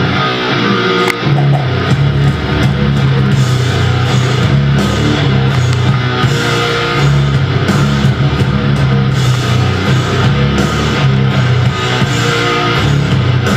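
Rock music with distorted electric guitar and drum kit playing steadily.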